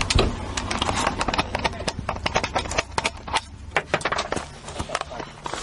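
Rapid, irregular knocks and clattering from inside a car cabin during a crash, many sharp hits close together, thinning out about halfway through.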